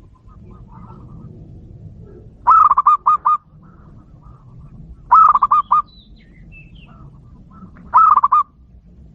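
Zebra dove (local perkutut) cooing: three short calls, each a quick run of staccato coos, about two and a half seconds apart.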